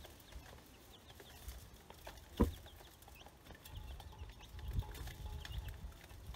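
Baby chicks and ducklings peeping, many short high chirps scattered throughout, with one sharp knock about two and a half seconds in.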